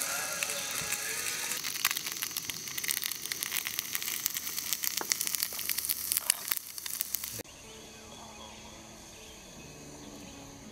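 Food sizzling and crackling with frequent small pops in a small frying pan on a gas canister camp stove. It cuts off suddenly about seven seconds in, leaving only faint, quieter sound.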